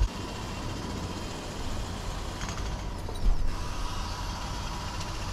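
A steady low mechanical rumble with a faint steady whine, and a dull thump at the start and another about three seconds in.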